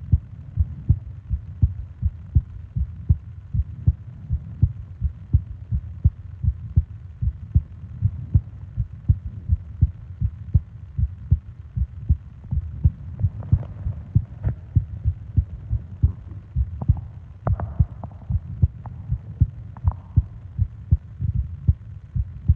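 A person's heartbeat heard close up: a steady, even train of soft low thumps in the lub-dub rhythm. A few faint light clicks come in over it in the second half.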